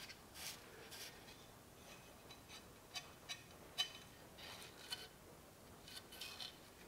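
Faint handling sounds of a rusty steel cleaver being turned over in the hands: fingers rubbing on the rough blade, with a few light, irregular clicks and ticks, the sharpest about four seconds in.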